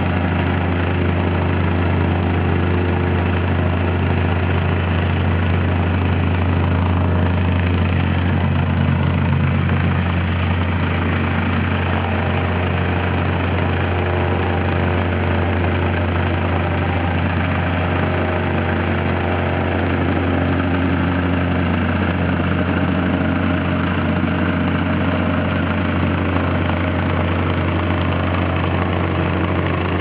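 Engine-driven vibratory plate compactor running steadily as it is walked across a gravel bed, a loud, even drone with a rapid throb from the vibrating plate.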